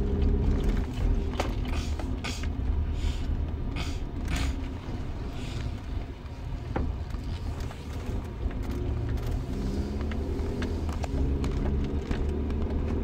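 Steady low rumble of a car's cabin, with scattered small creaks and clicks from the interior.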